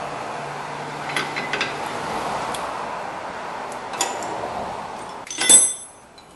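Small metallic clicks as a new steel brake-pad abutment clip is pushed down onto a caliper bracket, over a steady workshop background noise. About five and a half seconds in comes the loudest sound, a sharp metal clink that rings briefly.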